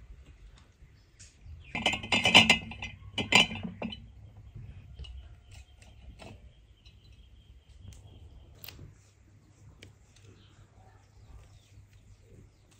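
Glass jars clinking against each other in two short rattling clusters, about two and three and a half seconds in, followed by faint small clicks of handling.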